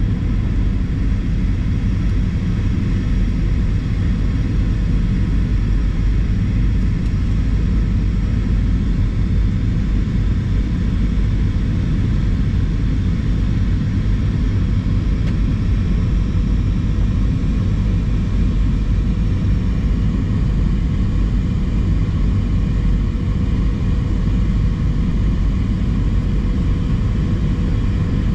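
Cabin noise of an Airbus A320 in flight: a loud, steady low rumble of the engines and air rushing past the fuselage, with a faint steady hum above it.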